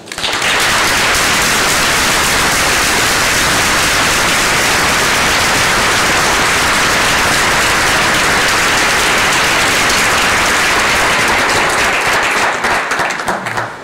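Audience applause: dense, steady clapping from a large crowd that starts all at once and tapers off near the end.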